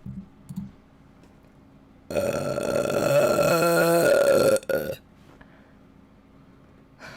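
A person's long, loud burp starting about two seconds in and lasting about two and a half seconds, rough at first and then turning into a throaty, wavering tone before it cuts off.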